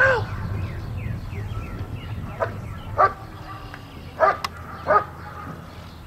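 Dog barking at a protection helper while guarding him: five sharp barks at uneven intervals, the first the loudest.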